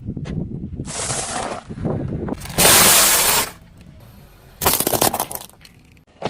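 Objects cracking, crunching and breaking as a car's tyre rolls over and crushes them, in several short clips cut one after another; the loudest burst of crunching comes about halfway through.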